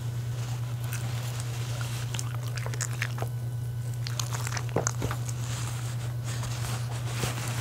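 A West Highland White Terrier biting and chewing a piece of soft cooked dog-food donut taken from the fingers: small wet mouth clicks and smacks, coming thickest about two-thirds of the way through, over a steady low hum.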